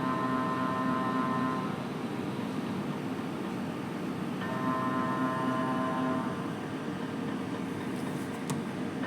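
MRI scanner running a scan sequence: the gradient coils give a high, buzzing multi-tone note in blocks of under two seconds, twice, about four and a half seconds apart, over a steady low hum.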